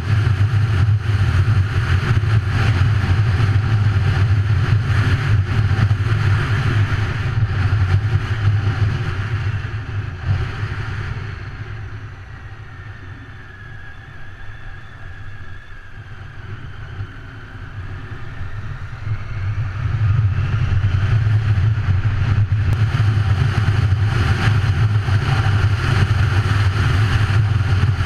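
Triumph Tiger motorcycle riding at speed, its engine under heavy wind noise on the camera microphone. About eleven seconds in it slows and the sound drops for several seconds, then it speeds up again and the wind noise returns to full level.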